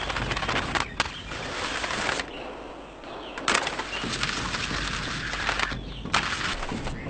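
Skis scraping and clattering over stone steps and paving: a rough hiss full of rapid knocks, dropping off for about a second partway through before a hard knock.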